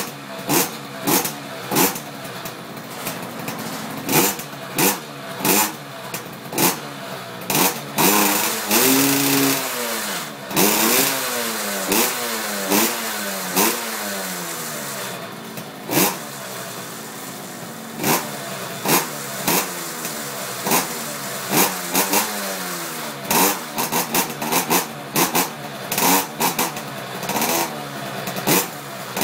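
KTM SX50 mini motocross bike's 50cc two-stroke single kick-started and catching right away, then revved again and again in short, sharp throttle blips, each rising and falling in pitch, with one longer high rev about eight seconds in.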